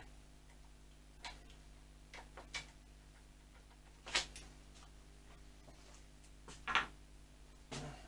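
Sparse, sharp clicks and knocks of hand tools against metal fittings on a motorcycle, about six in all and irregularly spaced, the loudest about four and about seven seconds in.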